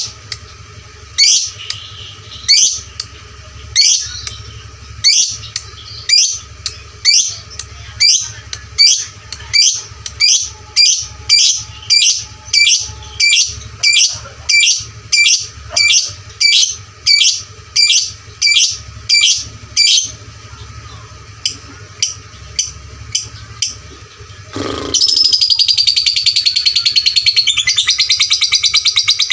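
A lovebird giving sharp, shrill chirps. They come about one a second, quicken to about two a second, then thin out. Near the end it breaks into a loud, continuous, rapid chatter. This is the 'ngetik lanjut ngekek' pattern, repeated ticking calls leading into a long chatter, that is prized in contest lovebirds.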